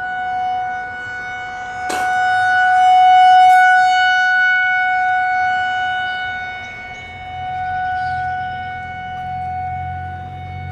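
Outdoor civil-defense warning siren sounding a tornado warning: a steady wail on one pitch that swells and fades twice. A short sharp click comes about two seconds in.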